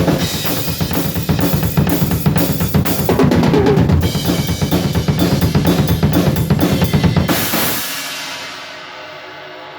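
Drum kit with double bass drums played in a dense, rapid groove with snare and cymbals. About seven and a half seconds in it stops on a cymbal crash that rings on and fades away.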